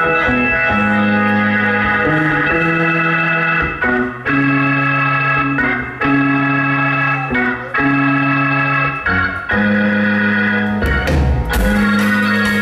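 Live band music led by an electric organ holding sustained chords that change every second or so, over bass guitar. Drums come in near the end.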